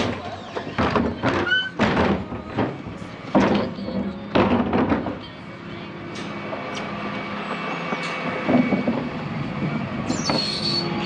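Green wheelie bin being emptied on a refuse truck's Terberg electric lift: a rapid series of bangs and thuds for about five seconds as the bin is shaken against the hopper. After that the truck runs steadily, with a high squeal near the end.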